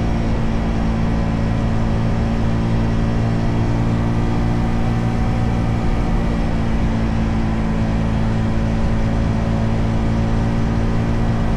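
Motorcycle engine running at a steady, unchanging pitch, heard through the built-in microphone of a handlebar-mounted camera with wind reduction on.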